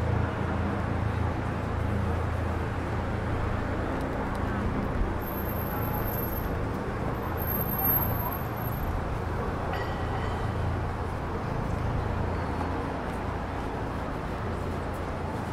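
City street traffic running steadily, with a low steady engine hum under the road noise.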